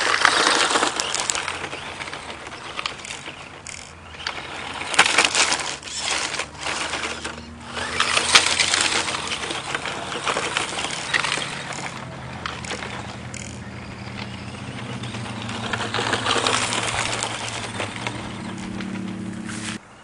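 Tamiya TT-01 electric RC car driving over loose gravel: the tyres crunch through the stones and pebbles clatter and rattle against the car, with a low hum from the motor and drivetrain that grows louder near the end. The sound cuts off abruptly just before the end.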